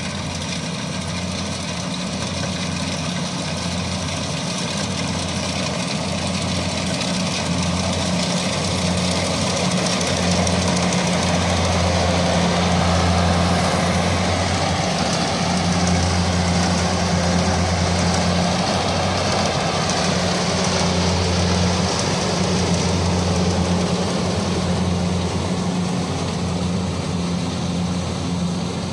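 Kubota D70 combine harvester's diesel engine running steadily at work, with a low, even hum. It grows louder through the middle and eases off a little near the end.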